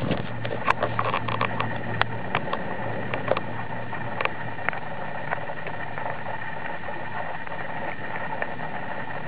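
Light clicks and taps of a plastic Breyer model horse being knocked along dirt and stones by hand, many in the first couple of seconds and then only now and then, over a steady outdoor rush of noise.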